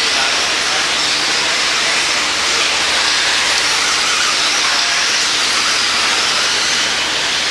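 A pack of radio-controlled stock-class racing trucks running laps on an indoor dirt track: a steady, high-pitched hiss and whine of their motors, gears and tyres.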